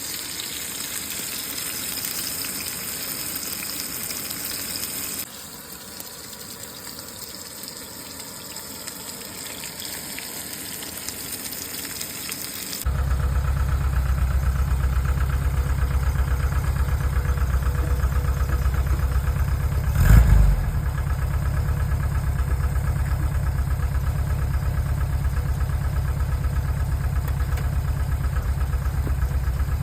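An even hiss for about the first thirteen seconds, then an engine idling with a steady low rumble and an even, rapid pulse, broken by one louder knock about twenty seconds in.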